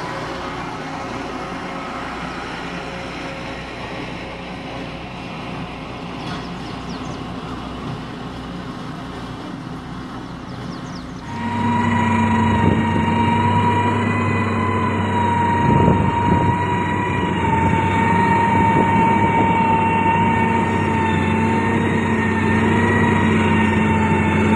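Heavy road-construction machinery running: a steady engine hum, which about eleven seconds in turns sharply louder with a steady high-pitched whine held over the engine.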